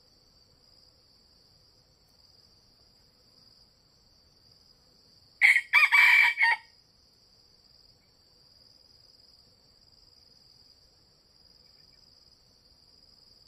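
A red junglefowl rooster crows once, a short crow of about a second midway, over a steady high drone of insects.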